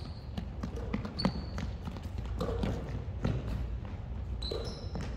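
Basketball bouncing on a hardwood gym floor during play, with sneakers squeaking briefly a few times.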